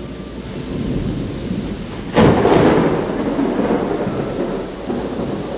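Steady rain falling, with a sudden loud thunderclap about two seconds in that trails off into a long rumble.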